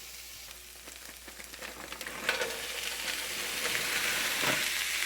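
Food sizzling in a hot pan, with a few small clicks of stirring; the sizzle grows louder a little over two seconds in.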